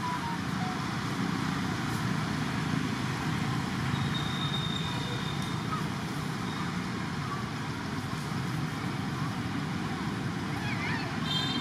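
Steady outdoor background din, like distant road traffic, with a few faint high chirps near the end.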